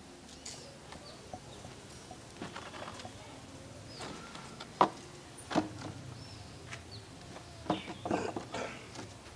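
Knocks and scrapes of a grey resin-wicker armchair being taken hold of, moved and set down on a hard dirt yard, the loudest knocks about halfway through and a cluster near the end. Faint birds chirp in the background.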